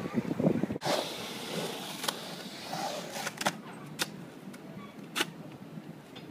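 Outdoor background noise: a steady hiss, with a few short sharp clicks scattered through it.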